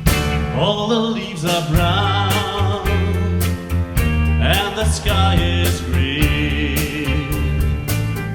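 A large choir of about 400 voices singing a 1960s California pop medley in harmony, over band accompaniment with a steady beat and bass line.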